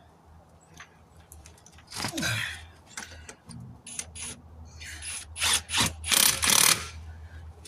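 Tire spoon prying a truck tire's bead off the rim by hand: irregular scraping and rubbing strokes with small metal clicks, the strongest strokes coming in a cluster near the end.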